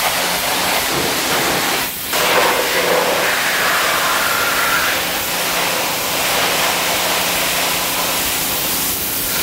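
High-pressure washer wand spraying water into a car's wheel well and over the tyre, a loud steady hiss that breaks off briefly about two seconds in. The spray is rinsing mud out of the wheel arch as the first pre-wash stage.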